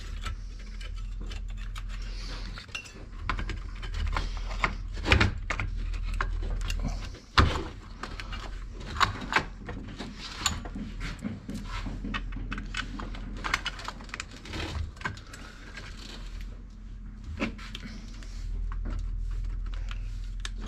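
Irregular clinking, clicking and knocking of small metal parts and hand tools while a long bolt and nut are fitted through a brush cutter's plastic starter housing, over a low steady hum.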